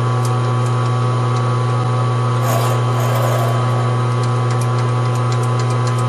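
Metal lathe running with a steady hum while a number 7 drill bores into brass for a quarter-20 tap, with faint ticks and a brief hiss about two and a half seconds in.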